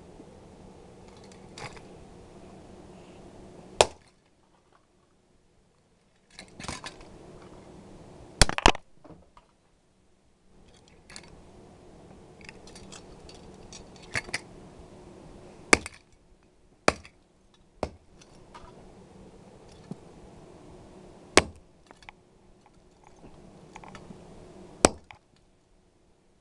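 A clock radio being smashed with a hammer: several hard, sharp blows a few seconds apart, one pair in quick succession, with smaller clicks and rattles of broken plastic and metal parts between them. A steady low hum runs underneath and drops out twice.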